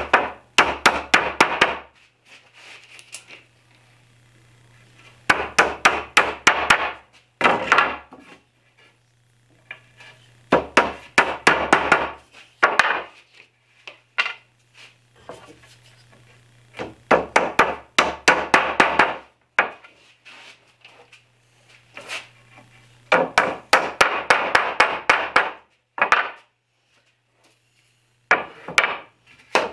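A mallet tapping wooden domino tenons into mortises in the edges of pine boards: bursts of quick sharp strikes, several a second, in groups a few seconds apart, over a faint steady low hum.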